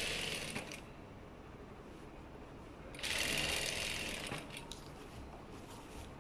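Zoje industrial lockstitch sewing machine stitching in two short runs, one at the start and another about three seconds in, each lasting about a second and a half.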